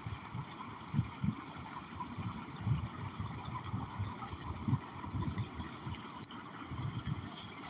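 Small stream trickling and gurgling over a rock dam, with irregular low rumbles on the microphone and a single sharp click about six seconds in.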